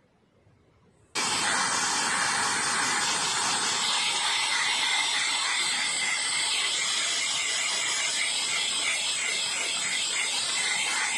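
Compressed air blasting dust out of a desktop PC, a loud steady hiss that starts abruptly about a second in.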